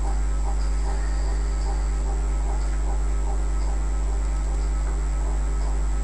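Steady electrical mains hum, loud and unchanging, picked up in the recording chain.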